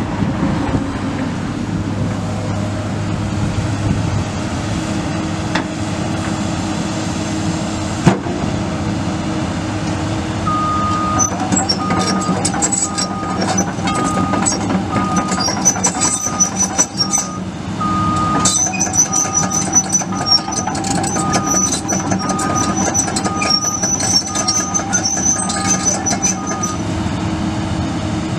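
2011 Komatsu PC200LC-8 excavator's 6.7 L six-cylinder turbo diesel running steadily. From about ten seconds in, its travel alarm beeps evenly, about one and a half beeps a second, with fast high-pitched squeaking and clanking as the machine tracks. The beeping and squeaking break off for a moment partway through, then resume.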